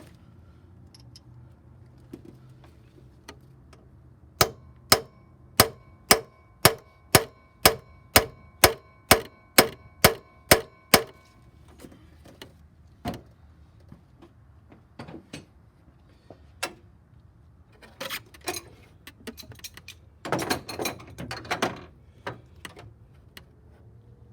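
A hammer striking a metal tool about fourteen times at a steady pace of roughly two blows a second, each blow ringing, while working on the cylinder head bolts of a Chevy 4.2 engine. After that come a few single metal knocks and a brief clatter of tools.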